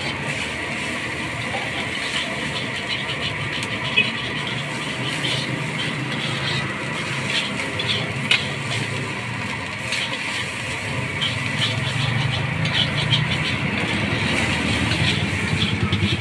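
A metal spatula scraping and clinking against a steel wok as fried rice and noodles are stir-fried, with sizzling. Under it runs a steady engine-like rumble of passing motor traffic that grows louder toward the end.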